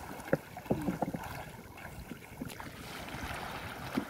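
Water splashing as people swim through shallow floodwater: irregular slaps and strokes, then a denser wash of splashing in the second half.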